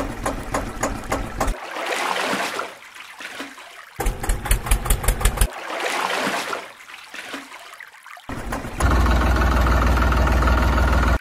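Tractor engine chugging in short stretches of rapid, even beats, alternating with water splashing and sloshing; from about nine seconds in, a steady, louder engine idle takes over.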